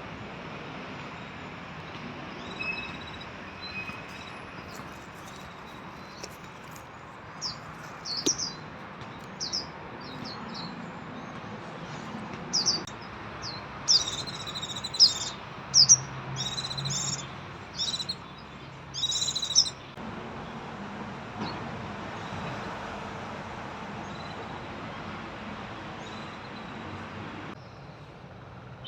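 Japanese white-eyes giving a series of short, high chirps, coming thickest in the middle stretch, over a steady background hiss.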